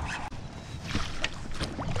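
Water splashing and sloshing against the side of a small boat, with a few light knocks, as a hooked salmon is drawn alongside to be netted.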